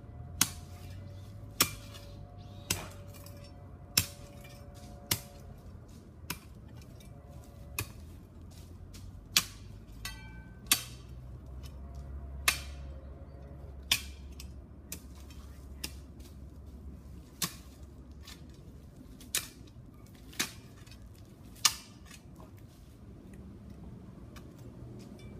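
Spade blade striking and scraping into stony ground while digging along a fence line, with sharp strikes every one to two seconds at an uneven pace.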